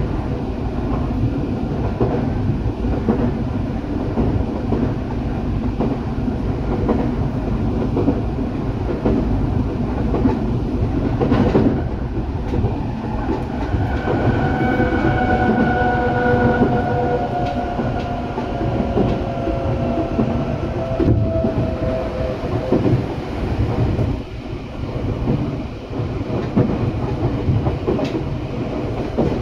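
Eidan 8000 series commuter train running, heard from inside the car: a steady rumble of wheels on rail with clickety-clack and a sharp knock about a third of the way in. From about halfway a whine of several tones slowly falls in pitch for several seconds.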